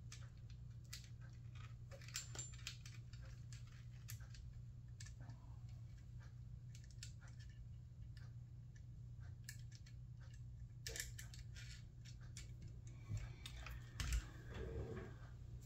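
Scattered light clicks and taps of small plastic and metal fuser parts being handled and fitted together, over a steady low hum.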